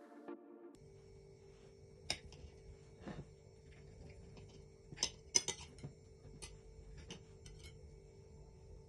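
Knife and fork clinking against a plate while an omelette is cut, a scatter of sharp clicks with the loudest about five seconds in. Electronic intro music cuts off in the first second.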